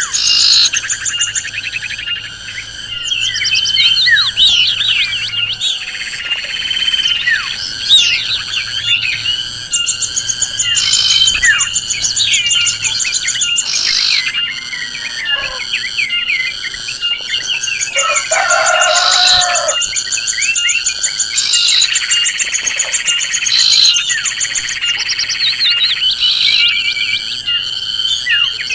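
Forest birdsong: many birds chirping and calling in quick rising and falling notes over a steady, pulsing insect trill, with one lower call about eighteen seconds in.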